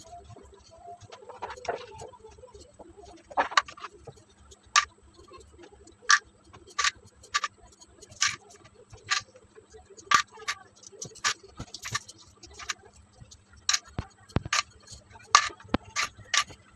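Irregular sharp taps and slaps of hands and a small broom against a bed sheet and mattress as a bed is made, roughly one or two a second.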